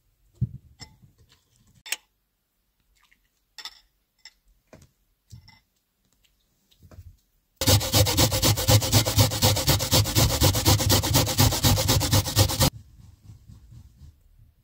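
An onion being grated on a stainless steel box grater: fast, rhythmic scraping strokes for about five seconds, starting about halfway through and stopping suddenly. Before it, a few light clicks and taps.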